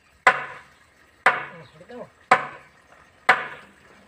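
Sledgehammer striking a wooden board set on top of a blue PVC well pipe, driving the pipe down: four blows about a second apart, each with a short ringing decay.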